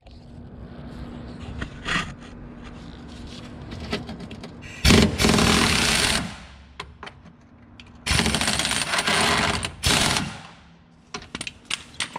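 Craftsman pneumatic impact wrench running a suspension bolt loose: it runs twice, about a second and then about two seconds, with a few small metal clicks near the end.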